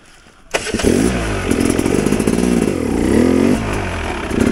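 Two-stroke enduro dirt bike engine firing up about half a second in, then revved up and down several times with throttle blips.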